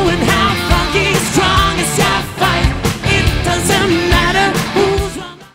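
Background pop-rock song with a male singing voice over a steady beat, fading out near the end.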